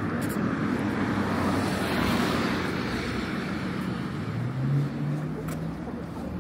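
Street traffic: a car passes close by, its noise swelling to a peak about two seconds in and then fading, over a low engine hum.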